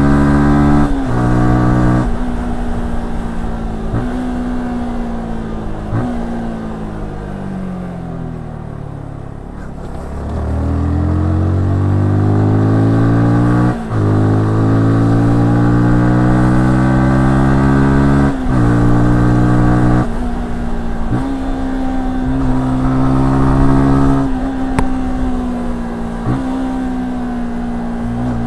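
Yamaha R15S single-cylinder engine and exhaust on a ride, running through the gears. Its pitch breaks and steps at each gear change, with short dips. About a third of the way in it winds down, then climbs steadily under acceleration before more upshifts.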